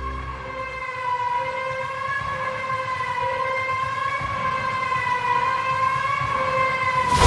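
Background music in a siren-like passage: a held synth tone that slowly wavers up and down in pitch over a thin, noisy low end, with the bass dropped out. The full bass-heavy music comes back in sharply at the very end.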